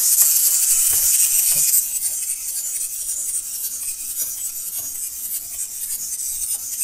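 Wind-up clockwork motor of a small plastic dinosaur model kit running, freshly wound, with a steady raspy whir as the toy walks. It is loudest for the first couple of seconds, then goes on a little quieter.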